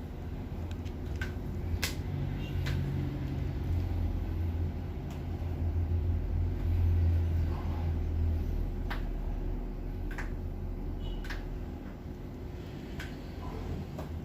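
A low steady mechanical hum that swells for a few seconds in the middle, with scattered light clicks.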